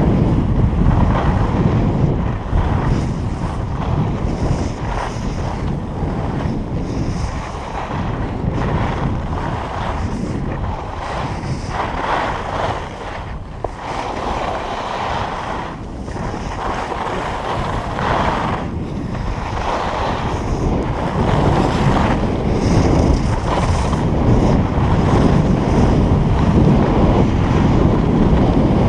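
Wind buffeting a skier's camera microphone during a fast downhill run, with the skis hissing and scraping over the packed snow in swells as they carve each turn.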